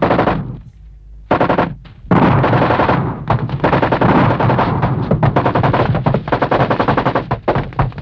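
Automatic gunfire: a machine gun firing long strings of rapid shots, breaking off briefly about half a second in, a short volley, then near-continuous firing from about two seconds in.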